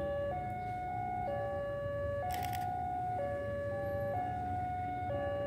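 Railway level-crossing warning alarm sounding its two-tone electronic chime, a high note and a low note alternating about once a second, warning of an approaching train. A brief hiss comes about two and a half seconds in.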